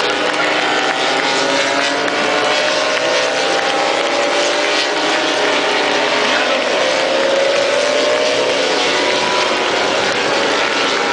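Dozens of grand prix racing motorcycles from the MotoGP, Moto2 and 125cc classes ride by together in a pack. Their engines overlap at different revs, with pitches gliding up and down.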